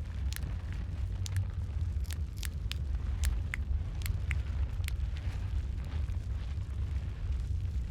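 Wood fire in a fireplace crackling, with frequent sharp pops and snaps over a low, steady rumble of the flames. The pops come thick for the first five seconds and thin out near the end.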